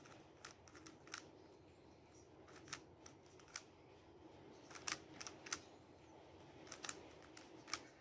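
Faint plastic clicks of a 3x3 Rubik's cube's layers being turned by hand, coming in quick clusters of one to three clicks every second or so over a low steady room hum.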